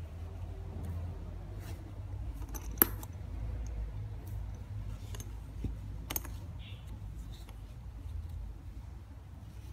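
Metal hardware on a messenger bag, its strap clasp and fittings, clinking and clicking as the bag is handled. There are scattered small ticks, with a sharp clink about three seconds in and another about six seconds in, over a low steady hum.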